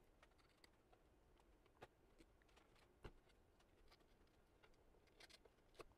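Near silence with a few faint, short clicks and light taps from handling, as the rubber gasket is peeled up off the hard drive.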